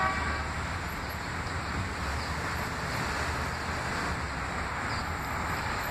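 Steady rumble of a distant subway train running on the elevated tracks, mixed with wind on the microphone. A short pitched tone sounds right at the start.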